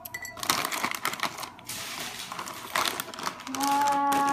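Dry croutons tipped from their bag and rattling into a blender jar: a rapid clatter of small hard clicks with some bag crinkle. Near the end a person's voice holds a steady hum.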